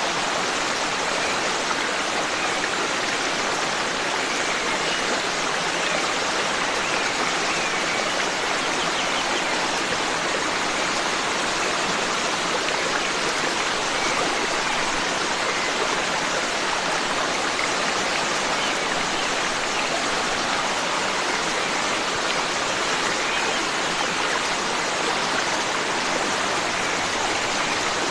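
Forest stream flowing steadily: a dense, even water noise that does not change.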